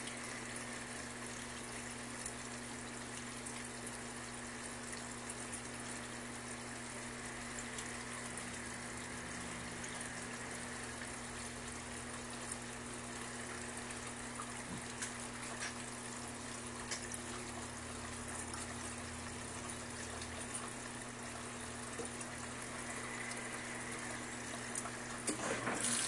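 Brastemp Vantage top-load washing machine filling: water running steadily into the machine through the detergent dispenser, over a steady low hum. Near the end the water gets louder as it starts spraying onto the clothes in the drum.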